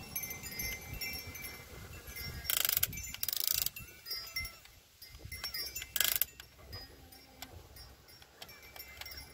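Electric motors and gearboxes of a 1/16-scale RC excavator whirring in short bursts as the boom and bucket move: twice in quick succession a few seconds in, and once more about six seconds in.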